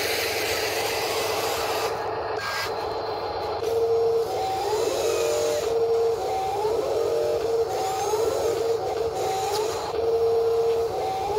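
Electric drive and arm motors of a Huina 583 radio-controlled wheel loader, a steady whine that steps up in pitch and rises briefly, about once a second, as the toy drives and works its bucket.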